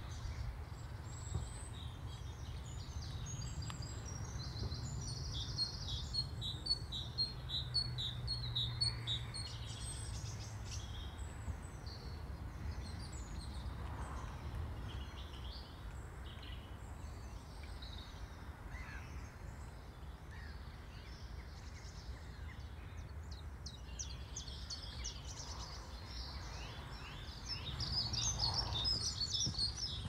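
Small songbirds chirping and singing, with many short high calls in quick runs, busiest in the first few seconds and again near the end. A low steady rumble runs underneath.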